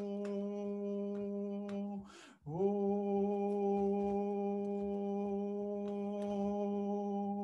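A man's voice chanting a long held tone on one steady low pitch. It breaks about two seconds in for a quick in-breath, then he takes up the same note again with a slight scoop upward and holds it. This is meditative toning, in the manner of a mantra.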